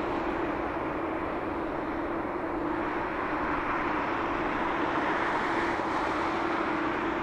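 Boeing 787-8 jet engines running at low thrust as the airliner taxis: a steady rushing noise with a low droning tone, growing slightly louder past the middle.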